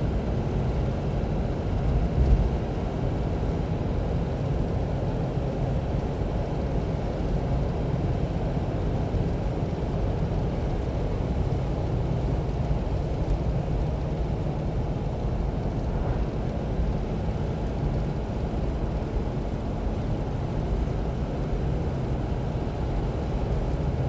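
Cab interior sound of a 1988 Toyota Land Cruiser HJ61 on the move: the 12H-T 4.0-litre straight-six turbo diesel runs with a steady drone under road noise. There is a brief knock about two seconds in.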